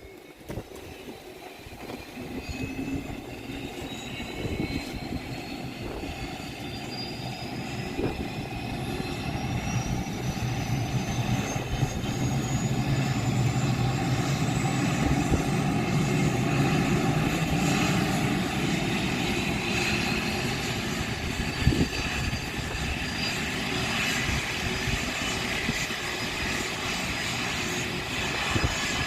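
Cessna Citation CJ1's turbofan engine starting up: a thin whine climbs steadily in pitch over about fifteen seconds as the engine spools up. The running noise grows louder over the first dozen seconds, then holds steady.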